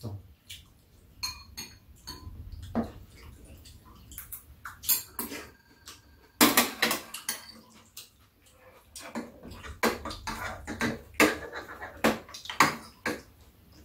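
Metal chopsticks and spoons clinking and scraping against bowls and dishes while eating. Scattered taps at first, with a dense run of clinks about six seconds in and another from about nine to thirteen seconds.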